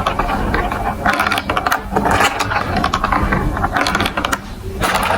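Marbles rattling and clicking along a plastic building-block marble run, a fast, dense clatter that eases briefly shortly before the end.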